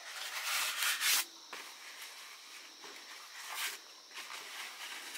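Large fresh leaves rustling and crackling as they are folded and pinned together with thin sticks, loudest in about the first second, with another brief rustle past the middle.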